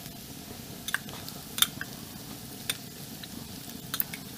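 Sliced onions sizzling steadily in a hot cast-iron pan, stirred with a wooden spatula, with a few sharp clicks of utensils against the pan and a jar.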